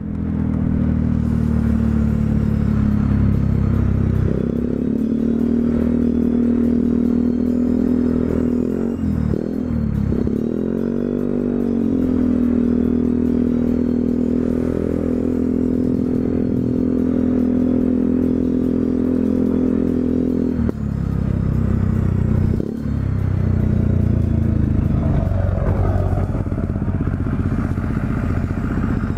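Yamaha Zuma 125 scooter's single-cylinder four-stroke engine running at a steady pitch while riding. Its pitch dips and climbs back about ten seconds in, and it drops to a lower, rougher note about two-thirds of the way through.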